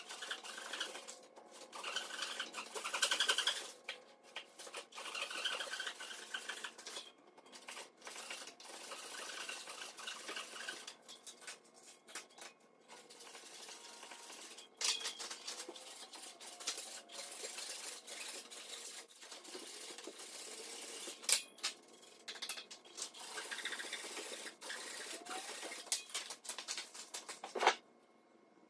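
Old hand saw rip-cutting lengthwise through a log, with steady back-and-forth sawing strokes about one or two a second. A few sharp knocks come in the second half, and the sawing cuts off suddenly just before the end.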